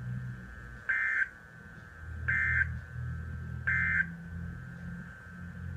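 Emergency Alert System end-of-message tones from NOAA Weather Radio: three short bursts of digital data warble, each about a third of a second and about 1.4 s apart, marking the end of the warning broadcast. A low hum runs underneath.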